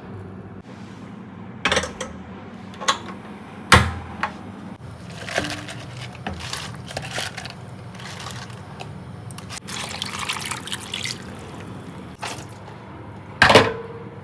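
Kitchen handling sounds: several sharp knocks and clinks, with liquid pouring for about a second past the middle, over a steady low hum.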